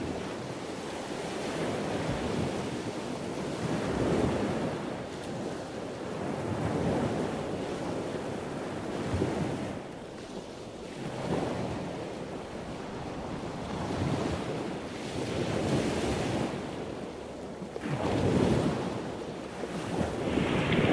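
Sea water washing and lapping around a camera held at the surface, swelling and easing every two to three seconds, with wind buffeting the microphone.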